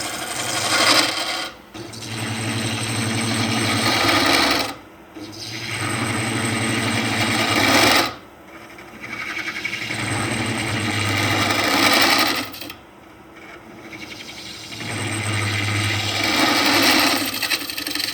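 A wood lathe's motor hums while abrasive rubs against the spinning wood-and-resin bowl, as in sanding. The rubbing comes in several swells that build and then drop off suddenly.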